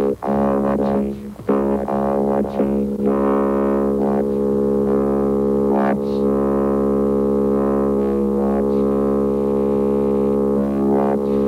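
Electronic synthesizer score holding one steady drone, cutting out briefly a couple of times near the start, with a few faint clicks over it.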